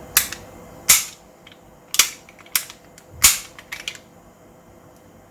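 Golden Eagle Hi-Capa 4.3 gas blowback pistol's action snapping: five sharp clacks of the slide and hammer, about half a second to a second apart, with a few light clicks after the last.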